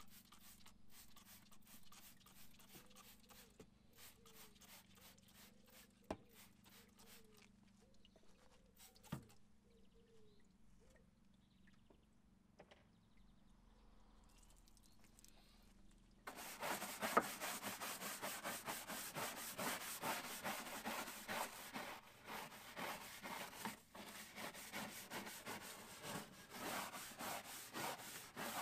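Rapid back-and-forth scrubbing strokes on the wheel-arch lining while cleaning a wheel well, faint at first, then much louder from a little over halfway.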